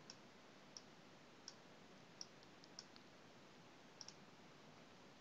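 Faint computer mouse clicks, about eight short clicks scattered over a few seconds, some in quick pairs, over a low steady hiss.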